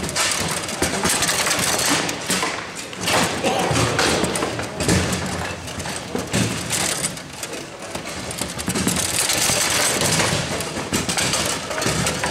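Baby-foot (table football) in fast play: a rapid, irregular clatter of the ball striking the figures and table walls and of the rods knocking and sliding.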